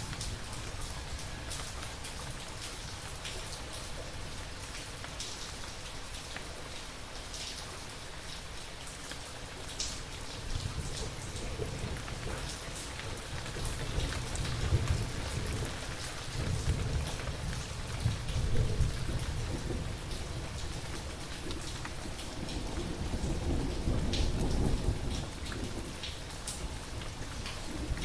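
Thunderstorm: steady rain with scattered drops pattering, under low rolling thunder that swells in the middle and again near the end.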